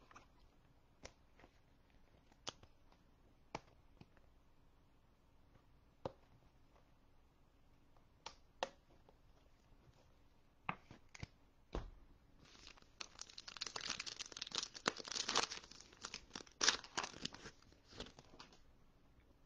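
Scattered light clicks and taps, then a foil trading card pack being torn open and its wrapper crinkled for about six seconds.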